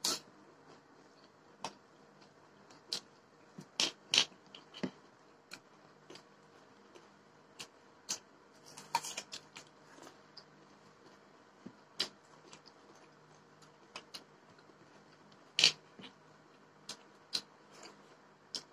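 Close-up eating sounds of two people eating rice with their hands: scattered, irregular sharp clicks and smacks of chewing and fingers working food. The loudest few come about four seconds in and again a little past three quarters of the way through.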